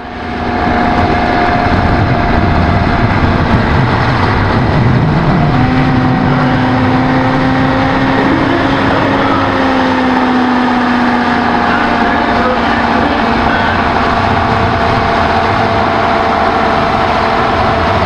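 Diesel engine of an ex-military 6x6 truck running hard under load as it drags a weight-transfer pulling sled. It makes a steady, loud drone with a held whine over it.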